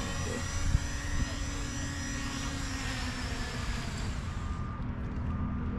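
Quadcopter drone's propellers whining as it comes down and lands, with the pitch sinking slightly. The whine dies away about four and a half seconds in as the motors stop.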